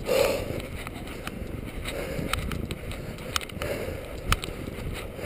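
Slow footsteps wading through deep snow, with a soft swish of nylon clothing at each step and a few sharp clicks.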